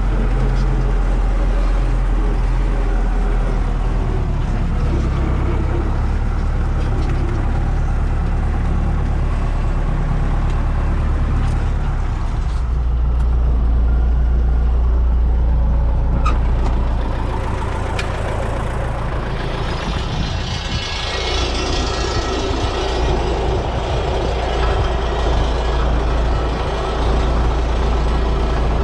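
MTZ-82 Belarus tractor's four-cylinder diesel engine running steadily, heard from inside the cab. A couple of sharp clicks come a little past the middle, and the engine sound dips and changes briefly about two-thirds of the way through.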